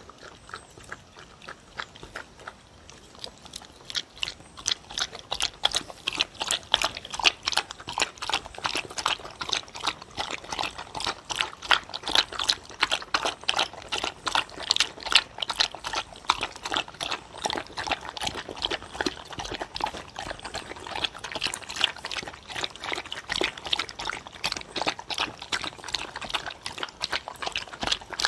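Two dogs lapping and slurping soupy food from wooden bowls: rapid wet tongue strokes, faint at first and growing busy and loud about four seconds in.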